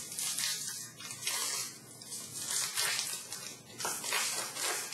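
Foil wrapper of a 2016-17 SP Authentic hockey card pack being torn open and crinkled by hand: a run of short, bright crinkles.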